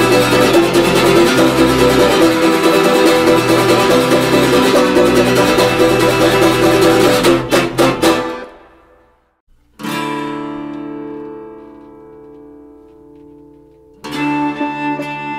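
Music: a loud, dense passage ends with a few final hits about eight seconds in and dies away into a second of silence. About ten seconds in, an acoustic guitar chord is strummed and left to ring, slowly fading. A second strum comes near the end as the next piece opens.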